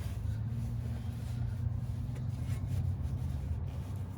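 Faint rubbing of a rag wiping spilled engine oil off the underside of the car, over a steady low hum.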